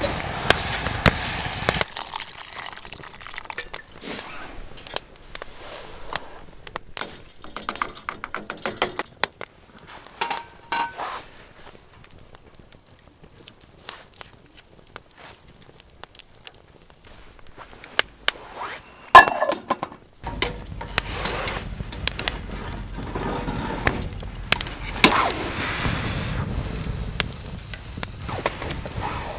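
Camp cooking handling sounds: scattered clicks, knocks and a few short ringing clinks of utensils and cookware, with a quieter stretch midway.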